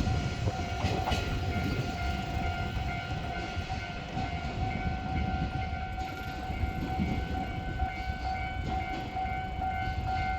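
A level crossing warning bell sounds continuously as a steady ringing tone. Under it, the low rumble of a passing container freight train gradually fades.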